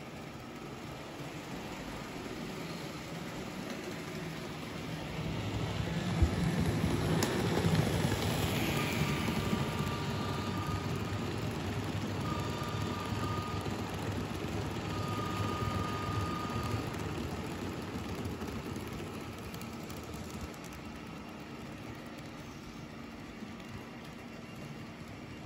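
N-scale model freight train running on its track, a rumble that grows louder as the train passes close by and then fades, with a thin high whine coming and going in the middle.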